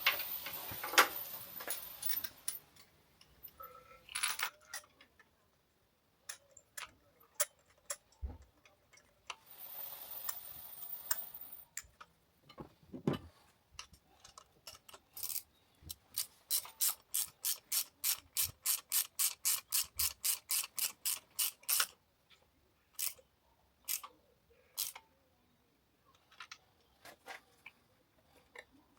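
Socket ratchet clicking as a spark plug is wound into the cylinder head, snugged now and to be torqued afterwards. Scattered single clicks and taps, then a steady run of about three or four clicks a second lasting some six seconds, with two short stretches of hiss, one at the start and one about ten seconds in.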